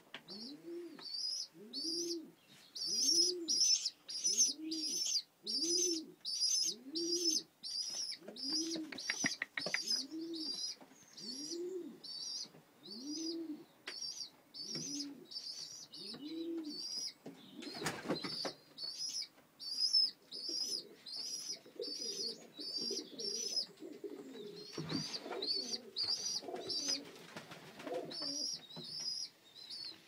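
Young racing pigeons in a loft squeaking: a thin, high squeak repeated about twice a second throughout, with a lower rising-and-falling call about once a second through the first half. A single knock about halfway through.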